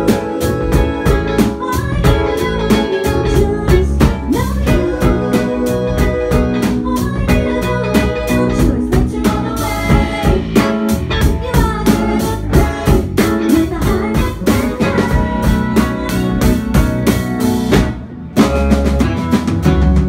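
Live indie pop band playing: electric guitar, drum kit and bass under a woman's lead singing. Near the end the band stops for a moment, then comes back in with heavy bass.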